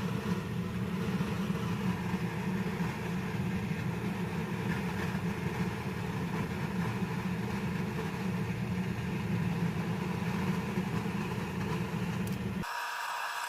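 A steady low rumble that starts suddenly and cuts off sharply near the end.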